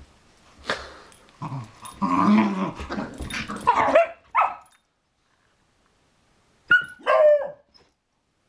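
Beagles play-fighting: a few seconds of rough growling and yipping with scuffling. After a short pause come two short, high barks that fall in pitch.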